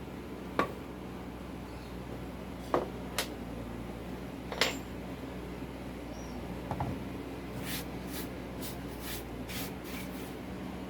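Handling noises: a few sharp clicks and knocks, then a run of about eight quick scraping strokes, over a steady low hum.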